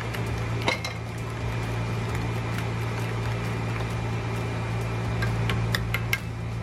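Steady low hum of a running kitchen appliance motor, with a few light clicks of utensils, one about a second in and a couple near the end.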